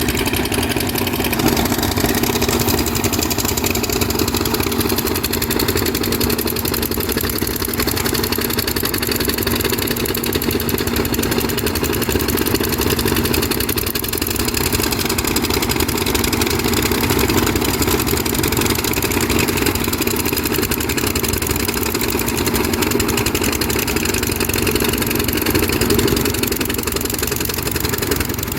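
Diesel engine of a Kobelco SK200 hydraulic excavator running steadily, with a constant tone and no change in speed.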